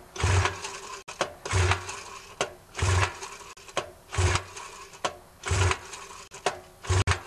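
Recoil starter rope pulled six times, about once every 1.3 s, cranking a 1962 Johnson 3 hp two-stroke twin outboard over by hand with its spark plugs out, so it does not fire. A compression gauge in the bottom cylinder climbs with each pull to only about 60 psi: low compression, too low for the motor to run.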